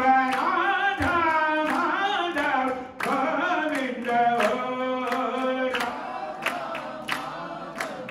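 Group devotional kirtan singing a repeated chant, kept to a steady sharp beat roughly every half second. The singing tails off about six seconds in, leaving the beat and a quieter held note.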